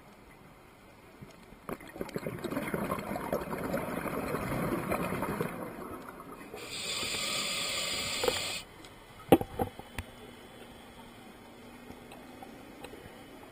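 A scuba regulator underwater: a bubbling rush of exhaled air for about four seconds, then the hiss of an inhalation for about two seconds that cuts off sharply. A few sharp knocks follow just after.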